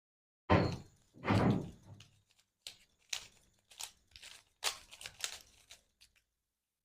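A plastic Rubik's Cube being turned by hand during a timed solve. Two louder rasping clacks come about half a second in and just after a second, then a run of short, quick clicks as the layers are twisted.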